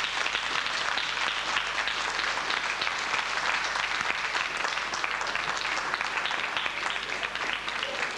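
Audience applauding: many people clapping steadily, thinning out near the end.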